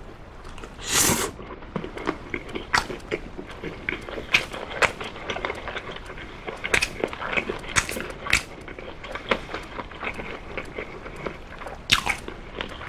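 Close-up chewing and mouth sounds of someone eating oven-baked chicken drumstick meat pulled off the bone: many quick wet clicks and smacks, with a louder noisy burst about a second in and another near the end.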